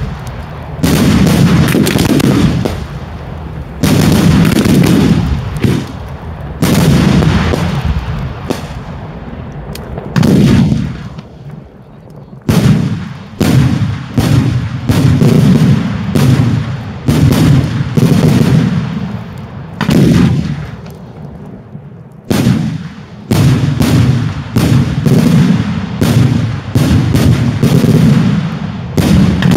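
Daylight fireworks display: loud firework bangs going off one after another, each followed by a rumbling echo. They come every two or three seconds at first, then about once a second, and close together near the end.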